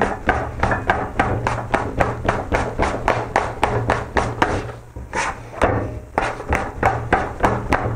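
Plastic dough scraper chopping through bread dough and knocking on a stone countertop in a quick, even rhythm of about four strokes a second, with a brief pause about five seconds in. This is scraper kneading, chopping and folding the dough to develop it faster.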